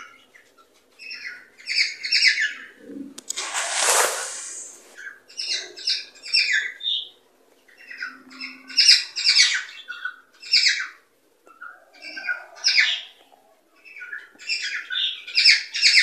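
Cockatiels chirping and whistling in bursts of quick repeated notes, each burst a second or so long with short pauses between. About four seconds in comes one harsh, noisy call lasting over a second.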